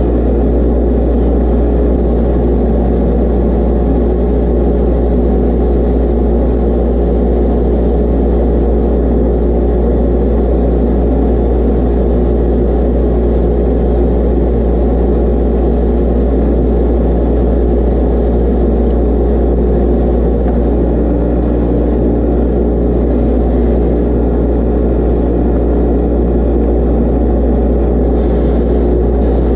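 Spray booth exhaust fan running with a loud, steady low drone. Above it, the hiss of an airbrush spraying white base coat drops out briefly several times.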